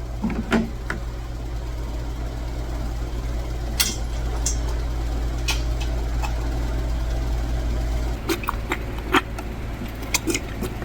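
Steady low hum, with scattered knocks and clatters as a dairy calf being bucket-fed milk bumps and butts at the bucket; the knocks come thicker in the last few seconds, as the calf spills the milk.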